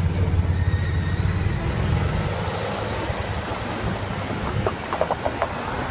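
Street traffic with an engine idling close by, its low rumble fading after about two seconds as the traffic moves off, under steady wind noise on the microphone as the bicycle rolls. A few short clicks come near the end.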